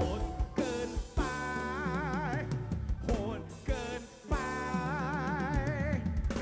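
Live band music: a male singer holds two long notes with a wide vibrato over a drum kit and bass, amplified through a large concert PA.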